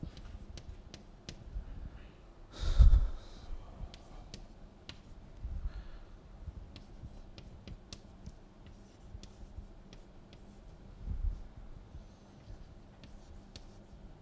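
Chalk writing on a blackboard: scattered sharp taps and clicks of the chalk as an equation is written, with a brief louder burst of noise about three seconds in.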